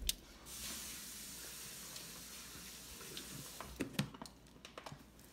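Water running steadily, as from a tap, for about three seconds and then shut off. A click comes just before it, and a few sharp knocks and clicks follow.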